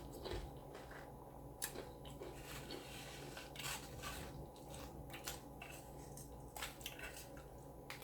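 A person chewing a mouthful of taco close to the microphone, with scattered short, crisp crunches and wet squishing sounds at an uneven pace.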